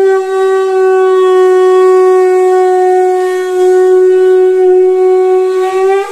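Temple conch shell (sangu) blown in one long, loud, steady note of about six seconds, lifting slightly in pitch as it ends.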